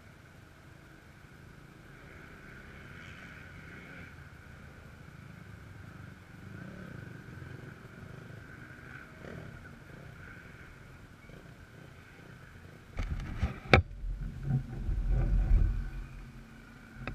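Faint, distant motocross bikes running, with slowly wavering engine notes. About thirteen seconds in, loud rubbing and knocking takes over as the camera is picked up and handled, with one sharp knock.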